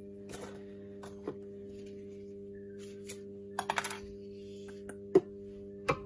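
Small sharp clicks and taps of hard plastic and metal as a spool of fly-line backing and the line winder are handled, with a quick rattle of clicks just under four seconds in and the loudest click about five seconds in. A steady low hum runs underneath.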